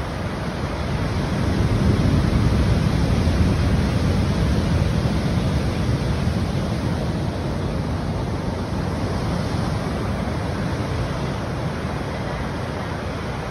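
Ocean surf rushing onto a beach, with wind on the microphone. The sound is a steady rush of waves that swells about two seconds in and then slowly eases off.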